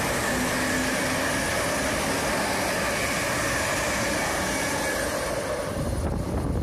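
Passenger train passing through the station at speed close by: a steady rushing of wheels and air that fades about five and a half seconds in, leaving a low rumble.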